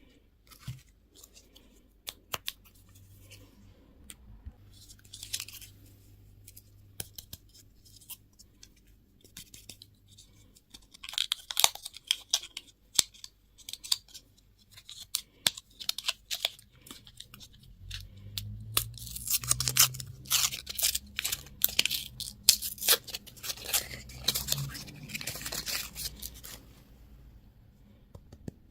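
Candy or toy packaging being unwrapped: crinkling and tearing of a wrapper in a run of sharp crackles and clicks, sparse at first and denser and louder past the middle.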